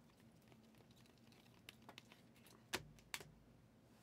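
Near silence with a few light clicks, two sharper ones less than half a second apart about three seconds in.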